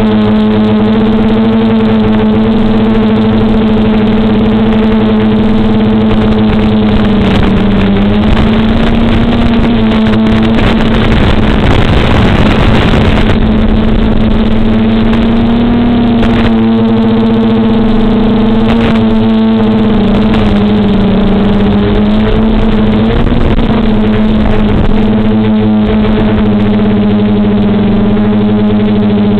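DJI F450 quadcopter's four DJI 2212 920KV motors and 9540 propellers humming in flight, the pitch wavering and rising and falling as the throttle changes. There is a rougher, noisier stretch about twelve seconds in.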